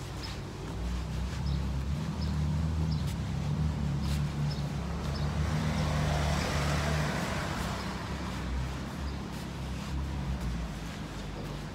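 A motor vehicle driving past on the street: a low engine rumble with tyre noise that swells to a peak about halfway through and then fades away.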